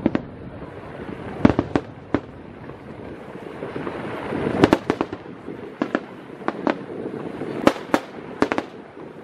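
Aerial firework shells bursting: about a dozen sharp bangs at uneven intervals, several coming in quick pairs.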